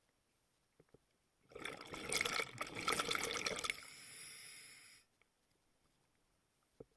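Scuba diver exhaling through a regulator underwater: a burst of bubbles crackling and gurgling out from about a second and a half in, easing to a smoother hiss before cutting off about five seconds in.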